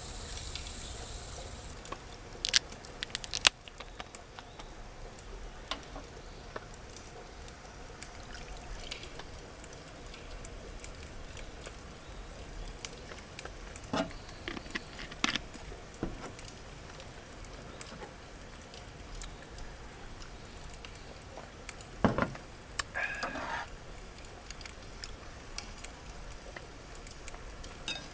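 A bottle of makgeolli being unscrewed, its cap hissing as the built-up gas escapes, then two sharp clicks of the cap. After that come scattered knocks and clinks of bowls and chopsticks on a metal camp table over a low steady background hiss.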